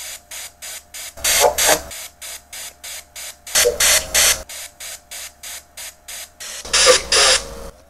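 XParanormal VR-Ghostbox software ghost box sweeping: short bursts of hissing static chopped about five times a second. Three longer, louder bursts hold voice-like fragments, which the user hears as a spirit saying "Stand here; open gate."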